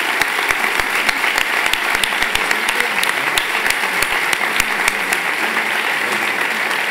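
A large audience applauding: dense, steady clapping from many hands.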